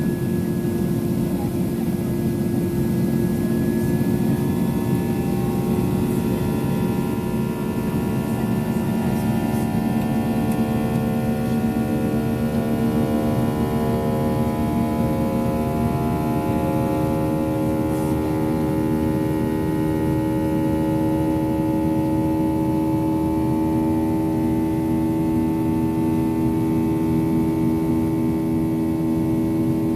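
Steady cabin drone of a Boeing 737-800's twin CFM56-7B turbofan engines, heard from inside the cabin: a low rumble with several steady whining tones, some of them drifting slightly and pulsing slowly against each other.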